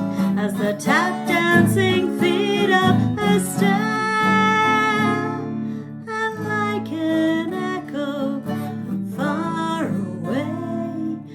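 A song sung with guitar accompaniment, the voice holding long notes with vibrato over plucked guitar.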